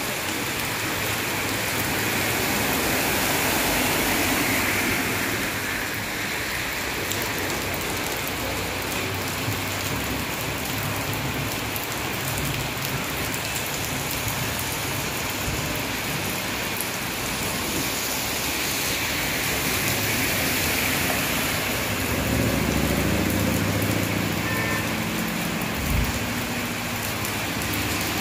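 Heavy monsoon rain falling steadily. In the last several seconds a vehicle's engine is heard approaching, with one short thump about two seconds before the end.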